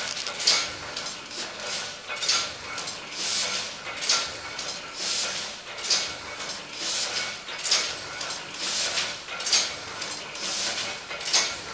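Printing press running steadily: a regular clack with a hiss each cycle, a little faster than once a second.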